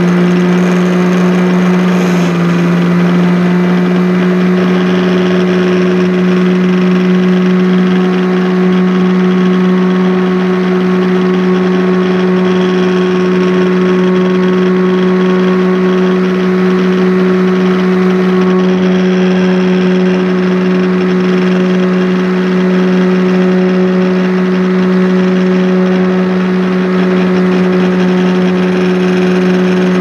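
Motor-driven key-duplicating machine running with a steady hum, its cutter wheel milling a brass KW1 key blank while the original key is traced.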